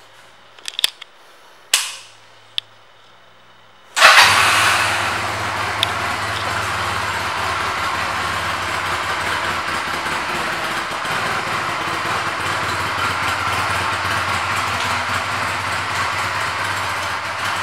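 A few small clicks, then about four seconds in the 2015 Honda Rebel's 234 cc air-cooled parallel-twin engine starts abruptly, loudest as it catches, and settles into a steady idle.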